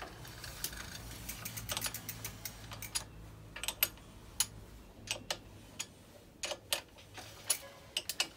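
Irregular metal clicks and ticks as a bicycle pedal is tightened into the crank arm with a 15 mm wrench.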